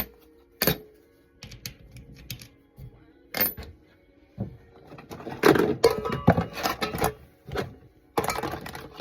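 Small metal fan parts clinking and clattering as they are handled and dropped together during teardown for scrap: a few single knocks, then a busy run of clatter in the second half.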